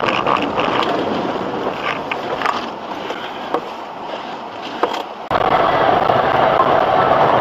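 Crashed car sliding and tumbling off the road, with rough scraping and rattling noise and a few knocks that fade over several seconds. About five seconds in, a sudden louder, steady rushing noise takes over.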